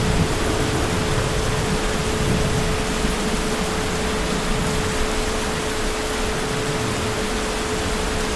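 Heavy rain falling steadily, an even dense hiss with no breaks, and a thin steady tone running underneath.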